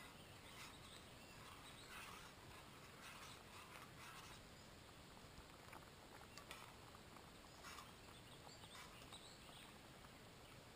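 Near silence, with faint, scattered scrapes of a metal spoon stirring food in a small metal camp pot.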